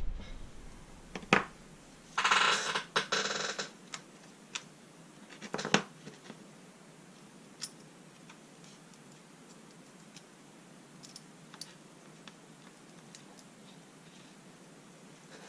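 Small metal parts handled and set down on a workbench: a few sharp clinks and a rattling scrape about two seconds in, then only faint light ticks as the pieces are fitted together.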